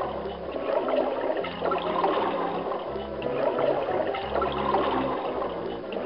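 Added film soundtrack: a low bass line moving from note to note about once a second, under a steady rushing, bubbling water noise.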